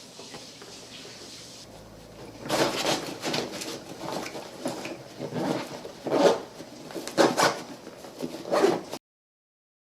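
Irregular rustling, rubbing and knocking of things being handled. It starts about two and a half seconds in and cuts off abruptly near the end.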